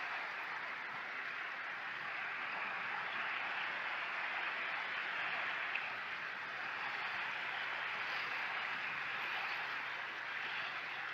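Small sea waves lapping on the shore: a steady hiss of water that swells and eases every few seconds.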